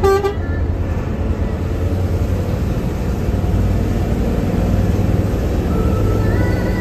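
Air horn toots briefly right at the start, then the steady low rumble of a Hino AK8 diesel bus running, with road noise.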